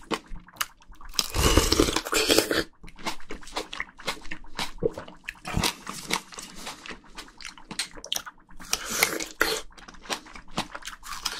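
Close-miked wet eating sounds of a juicy chilled plum being bitten and chewed: many quick mouth clicks and smacks, with a louder, denser juicy bite about a second in.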